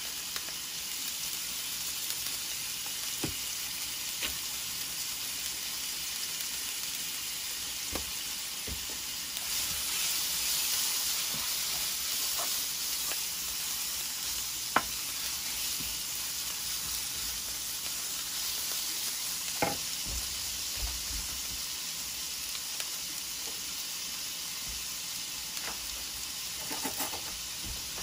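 Thin-sliced steak sizzling in oil in a nonstick frying pan, stirred with a wooden spoon. A few sharp knocks stand out, the loudest about halfway through.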